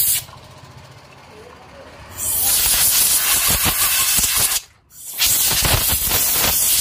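A pressurized jet hissing in two long bursts with a short break between them, blasting grit and dust off the air compressor's cylinder parts during cleaning.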